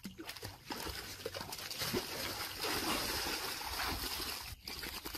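Dogs splashing in shallow water, the water sloshing and spattering irregularly.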